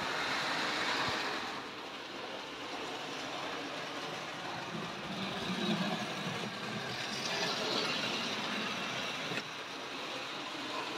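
Tri-ang OO-gauge model saddle tank locomotive running steadily along its track, hauling two loaded coal wagons.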